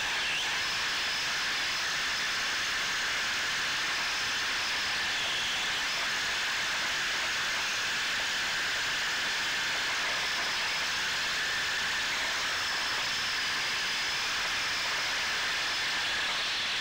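Steady hissing run noise of an electric RC drift car picked up by its onboard camera: drivetrain and tyres on a rubber court surface, with a faint high whine rising and falling now and then.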